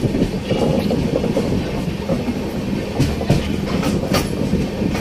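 Passenger train coaches rolling along the rails, heard from an open coach doorway: a constant rumble with a clickety-clack of wheels over rail joints and a steady low hum. Several sharp clicks come about three to four seconds in.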